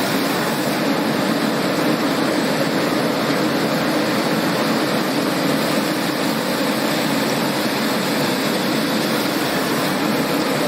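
Steady, even machine noise of a refrigerator door gasket production line running, with no distinct knocks or rhythm.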